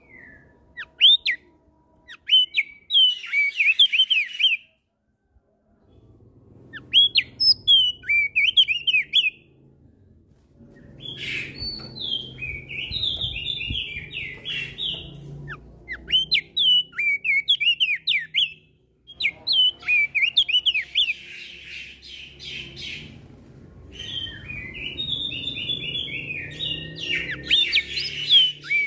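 Crested white-eye (opior jambul) singing loud, rapid twittering and whistled phrases in repeated bouts of a few seconds each, mixed with other birds calling back and forth.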